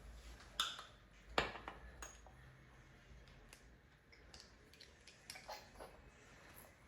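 A teaspoon scooping crunchy garlic chili and tapping against a mixing bowl: a few scattered light clinks and taps, the loudest about a second and a half in.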